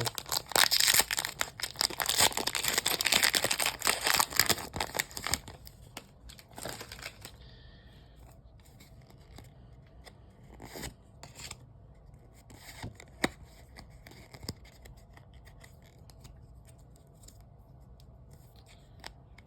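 Foil Pokémon booster pack wrapper being opened, crinkling and tearing loudly for about five seconds, then only faint scattered rustles and taps as the cards are handled.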